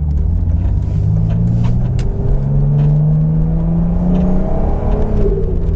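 Turbocharged S52 inline-six of a 1999 BMW Z3 M Coupe pulling under acceleration, its pitch rising steadily for about three seconds, then falling about four seconds in and climbing again.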